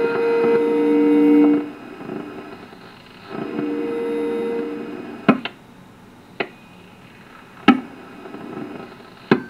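Audio from the speaker of a Ten-Tec Jupiter HF transceiver tuned on the 80 m band in lower sideband. Steady tones are held for about a second and a half, twice. Then come four sharp clicks over a low background hiss.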